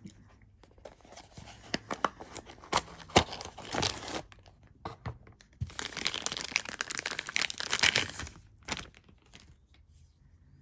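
Knife packaging being torn open and crinkled by hand: scattered crackling rustles and clicks over the first few seconds, then a denser stretch of tearing and crinkling lasting about three seconds.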